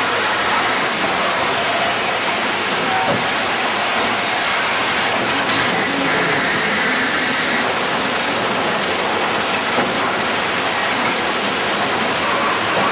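Bucket-line gold dredge running: the chain of steel buckets climbs the digging ladder and tips wet gravel into the hopper. It makes a steady, loud din of machinery with gravel and water pouring.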